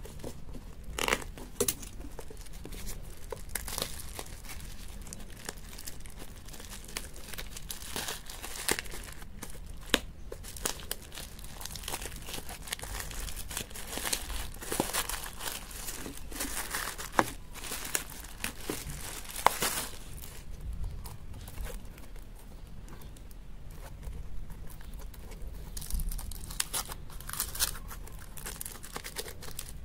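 Thin plastic wrapping crinkling and tearing as a small package is unwrapped by hand, with aluminium foil crinkling near the end. Irregular crackles, with louder clusters of snaps now and then.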